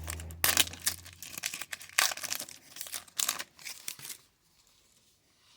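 Crinkling and rustling of a foil card-pack wrapper and trading cards being handled; it stops about four seconds in.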